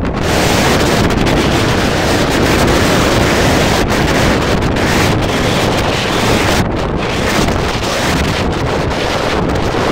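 Loud, steady wind buffeting the microphone on the open deck of a moving ferry, a constant rush of noise that dips briefly a few times.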